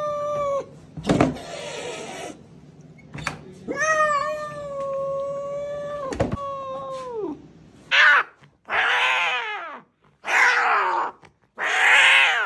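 Angry cat yowling: two long, drawn-out, steady growl-yowls, then from about 8 seconds a quick run of shorter, harsher cries. These are the defensive sounds of a cat being handled against its will. Two sharp knocks from the plastic pet carrier come between the long yowls.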